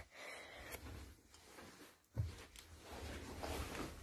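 Faint low rumbling and rubbing of a handheld phone being moved about as the swivel sofa spins, with a single soft thump about two seconds in.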